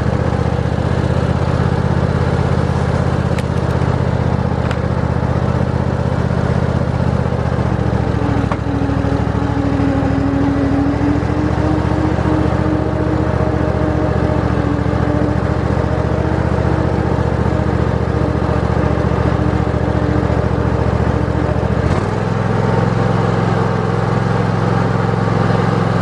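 Old Cub Cadet riding lawn tractor's engine running steadily as the tractor drives along. A whine rises over it about eight seconds in, and the engine note changes shortly before the end.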